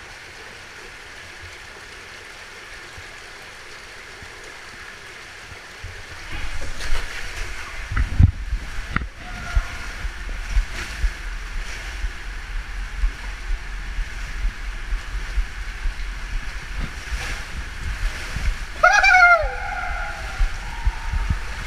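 Running water hissing steadily in an enclosed water-slide tube. About six seconds in, the ride starts: the rider's body rumbles and bumps down the plastic tube in rushing water, with many short knocks. Near the end comes a brief high sound that falls in pitch.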